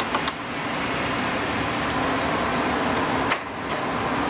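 Steady rushing air noise from a large shop fan, with a light click just after the start and a sharper tap about three seconds in as the plastic front fairing is handled and pressed against the bike.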